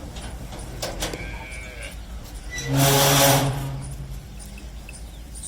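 A bovine gives one short, low moo about halfway through, with a few faint clicks before it.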